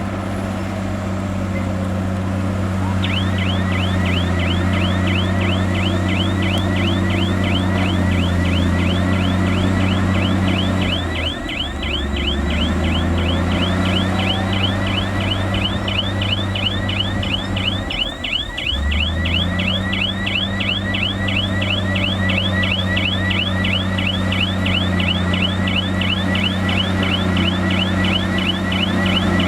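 A bulldozer's diesel engine running steadily under work, with its note dropping briefly twice, about 11 and 18 seconds in. From about three seconds in, a rapid, even train of short, high, falling chirps runs alongside it.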